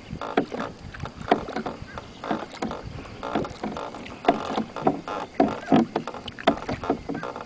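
A single sculling oar being worked back and forth over the stern of a small sailboat, giving short sharp knocks roughly once a second with the strokes.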